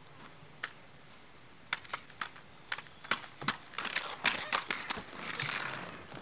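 Children's roller skates clattering on a concrete driveway: a string of sharp, irregular clacks, then a longer scraping noise near the end as a skater goes down on the concrete.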